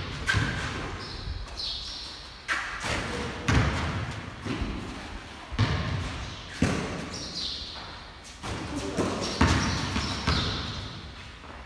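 Basketball dribbled on a concrete floor, bouncing in sharp thuds, most about a second apart, echoing in a large hard-walled bay. Short high squeaks come in now and then.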